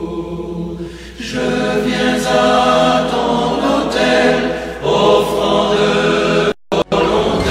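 A choir singing a slow French hymn of redemption in long held notes. The sound cuts out for a moment near the end.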